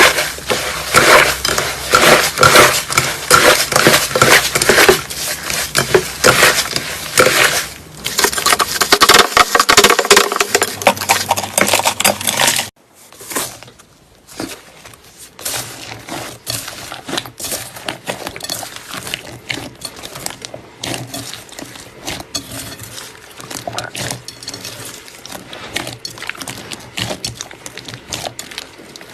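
Slime being squeezed and worked by hand, giving a dense run of crackling, popping clicks. It is loud for roughly the first half, then drops abruptly about thirteen seconds in to a quieter stream of the same small clicks and pops.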